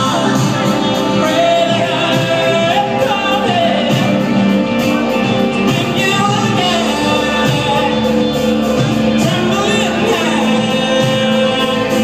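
Live rock band playing with a male lead singer, heard from among the audience in a concert hall.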